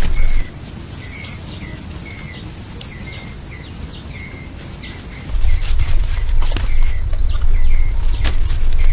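A bird calling over and over, short chirps about twice a second, over a loud low rumble that drops away about half a second in and returns about five seconds in. Scattered sharp clicks and taps.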